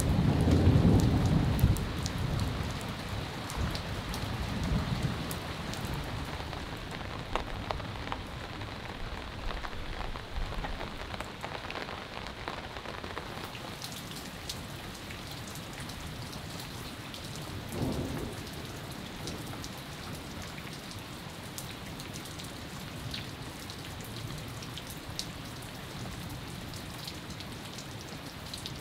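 Steady rain falling, with thunder rumbling low at the start and dying away within about two seconds. A short, fainter low rumble comes a little past halfway.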